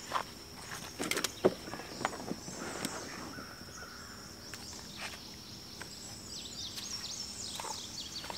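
Footsteps on the ground, a few sharp footfalls or knocks in the first three seconds, then birds chirping in a short flurry near the end, over a steady high-pitched hum.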